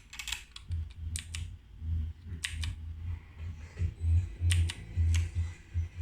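Keystrokes on a compact Ducky mechanical keyboard with clicky blue switches: sharp, irregular clicks, a few per second. A low pulsing rumble runs underneath from about a second in and is the loudest part.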